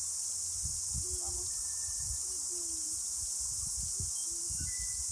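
Cicada chorus: a steady, dense, high-pitched drone.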